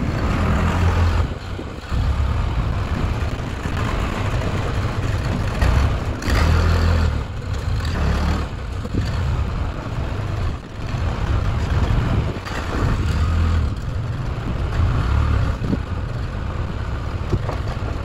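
Farm tractor with a front-end loader running, its engine rising and falling in level as the loader sets a log onto the log deck.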